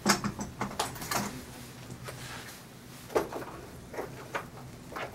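Scattered clicks and knocks of grooming tools being handled and taken from a wall pegboard, over a steady low hum.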